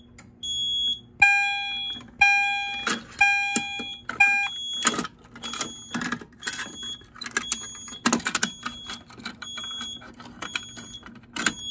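Fire alarm test signal sounding four pitched tone pulses about a second apart near the start, set off by pulling a SIGA 278 double-action pull station in audible walk test. Short high beeps repeat throughout, with sharp clicks and rattles from the pull-station handle and a key ring.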